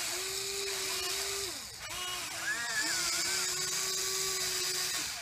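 Small electric motors of a radio-controlled model excavator whining as it works, the pitch rising and falling with motor speed. The whine stops with a click near two seconds in, starts and stops a few times, then runs steadily again.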